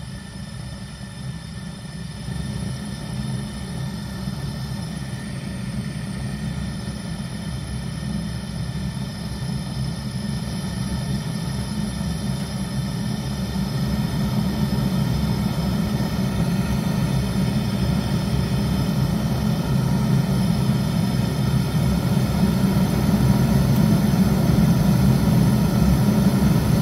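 Gas burner of a 1997 Zhukovsky 23 heating boiler running with a steady rushing noise and a light grunting from unstable combustion. It grows steadily louder as the gas tap is opened further.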